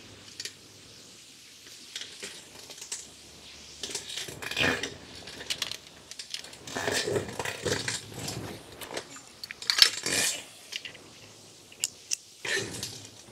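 Metal hand tools and brake caliper hardware clinking and clattering as they are handled, in irregular bursts with a few sharp clicks.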